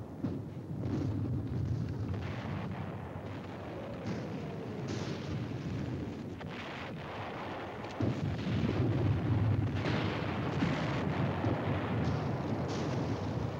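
Artillery fire as a continuous low rumble, with scattered sharp cracks of gunfire. It grows louder about eight seconds in.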